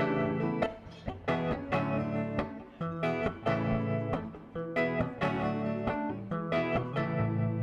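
Guitar strumming chords in a steady rhythm, the instrumental introduction of a song played live.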